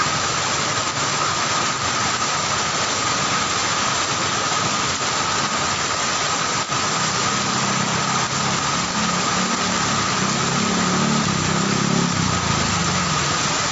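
Steady hiss of heavy rain with a thin, constant high whine, and a low rumble that joins about halfway through.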